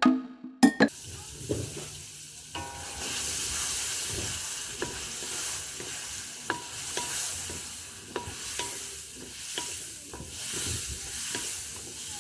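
Vegetables frying and sizzling in a cooking pot while a spoon stirs them. A few sharp knocks come in the first second, then a steady sizzle continues with scattered clicks of the spoon against the pot.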